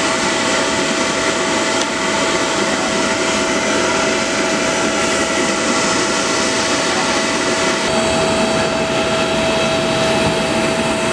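Steady, loud rush of air with a constant high whine from machinery running at a parked Boeing 777; the whine shifts slightly in pitch about eight seconds in.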